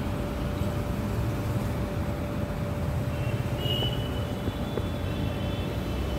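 Steady low background rumble with a faint steady hum, and a few faint thin high tones about halfway through.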